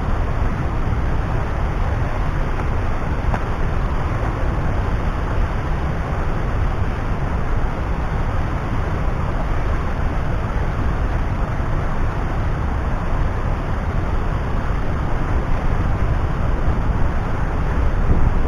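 River waterfall rushing: a loud, steady, unbroken roar of falling water.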